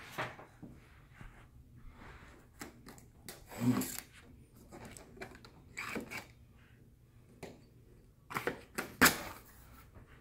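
Cardboard box being unsealed and its lid flap pulled open: scattered rustles, scrapes and sharp taps of the cardboard, with a fuller bump a little under four seconds in and a quick cluster of loud clicks about nine seconds in.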